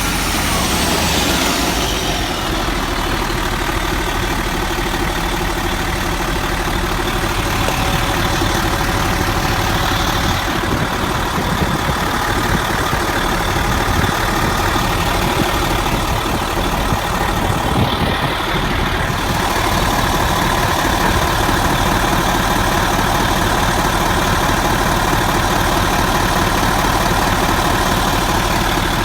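Mercedes-Benz Actros OM 502 V8 turbodiesel truck engine idling steadily. A high turbo whistle falls away over the first couple of seconds.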